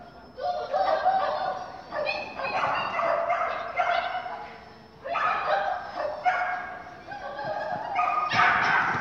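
Dog barking repeatedly, in a string of short, high calls, while running an agility course.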